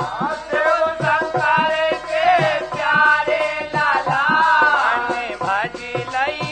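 Bundeli folk bhajan music playing: a wavering melody over steady drum strokes about twice a second.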